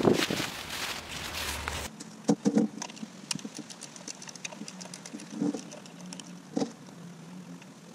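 Rustling of a nylon motorcycle cover being handled for the first two seconds. Then scattered metallic clicks and knocks of a hand tool working on the front brake caliper of a Suzuki Savage motorcycle, a few strokes spaced a second or so apart.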